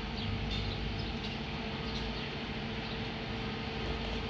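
Steady low engine hum running evenly, with a few faint high chirps in the first second or so.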